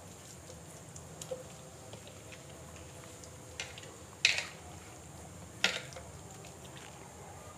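Hands rubbing spice powder into raw chicken leg pieces on a plate, with soft wet handling sounds and two sharp clicks, about four and a half and six seconds in, as the pieces are moved on the plate.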